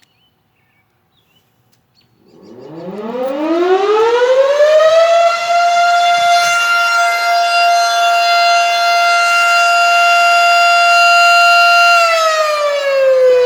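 Fire department outdoor warning siren sounding its scheduled test: after about two seconds of quiet it winds up in a rising wail, holds one steady, loud tone, and near the end begins to wind down.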